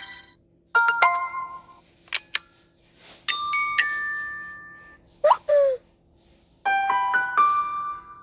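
Samsung Galaxy S25 ringtone and alert sounds playing on a phone as a run of short electronic chimes with gaps between them: a two-note chime about a second in, a couple of quick blips, a longer ringing two-note tone that fades slowly, a short falling swoop, and a stepped cluster of bell-like notes near the end.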